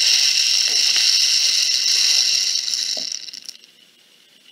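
Rice grains running down through a homemade paper-towel-roll rain stick as it is tipped, a steady rain-like hiss that dies away about three and a half seconds in.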